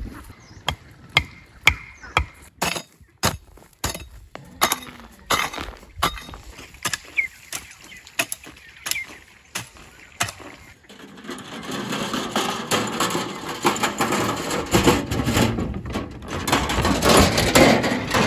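A hoe striking stony soil in sharp, irregular knocks. In the second half a louder, rough, continuous noise joins the blows.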